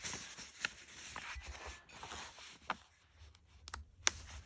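A sheet of paper rustling and rubbing as hands handle it and smooth it flat on carpet, with a few sharp crackles of the paper.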